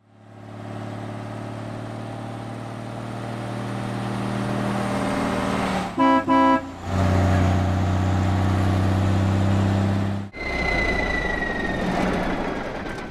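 Cartoon truck engine sound effect, a steady low running hum that fades in and grows louder, with two short horn toots about six seconds in. After a sudden change about ten seconds in, a noisy hiss with a high whine slowly falling in pitch.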